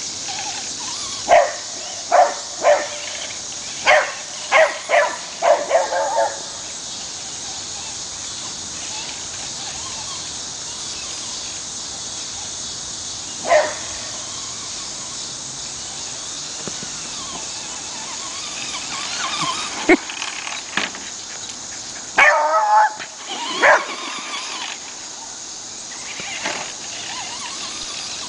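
Beagle barking in short bursts while chasing a radio-controlled truck. A quick run of barks comes in the first few seconds, a single bark about halfway, and another cluster near the end, all over a steady high hiss.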